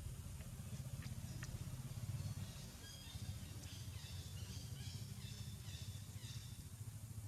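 Faint outdoor ambience: a steady low rumble, a few small clicks in the first second and a half, then a run of short, high bird chirps through the middle.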